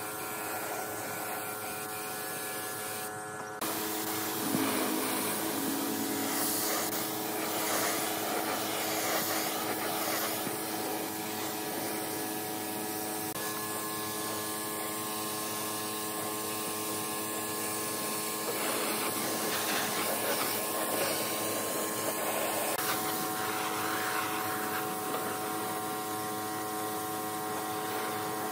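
Gravity-feed air spray gun hissing steadily while spraying finish, over a steady hum of several pitches that shifts every few seconds.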